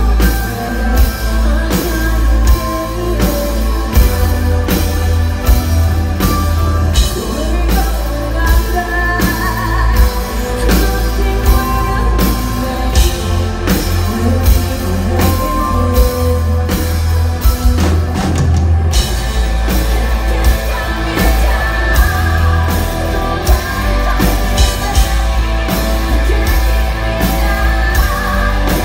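Live symphonic metal band playing: a female lead singer singing over drums, electric guitar, bass and keyboards, with a heavy low end. The drums and cymbals drop out for a moment about two-thirds of the way through, then the full band comes back in.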